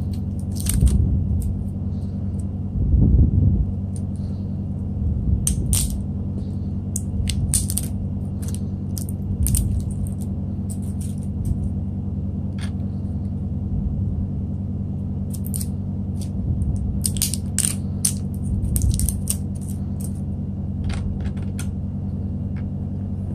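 Batteries clicking and clinking against each other and against the plastic battery compartment of a digital bathroom scale as they are handled and fitted: many short, sharp clicks at irregular intervals over a steady low hum.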